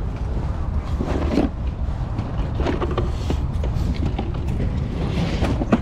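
Steady wind rumble on the microphone, with the rustle and knock of cardboard board-game boxes being lifted and shuffled in a tray.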